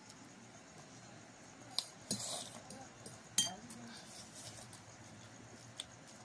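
Eating at a table: a few sharp clinks of a utensil against a bowl, the loudest about halfway, and a short slurp of pancit canton noodles.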